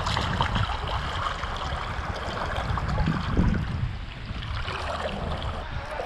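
Shallow river water flowing and splashing around a person's legs and feet moving in it.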